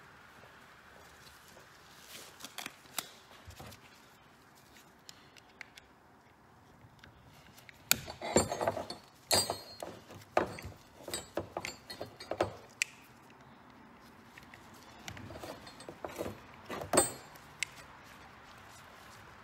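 Metal hand tools clinking and clicking against a SeaStar hydraulic steering helm as its port plugs are worked out with an Allen key, in scattered taps at first, then a dense clatter around the middle and another burst later on.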